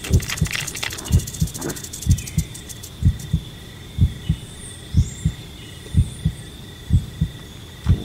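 Heartbeat, paired lub-dub thumps about once a second, steady and even, over a faint steady high tone.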